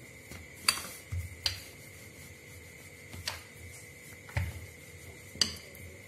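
Hands patting and pressing a small ball of dough on a floured granite countertop: about six sharp taps and knocks against the stone, the loudest under a second in, with soft rubbing between them.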